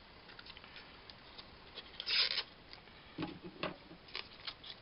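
Foil-lined plastic pouch of a Spam Single slice being handled and torn open: crinkling and rustling, with one louder rustle about two seconds in and a few light knocks near the end.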